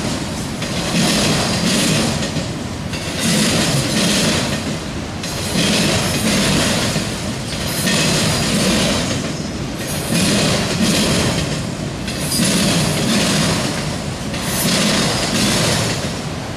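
Enclosed autorack freight cars rolling past, their steel wheels clattering on the rails. The noise swells and fades about every two seconds.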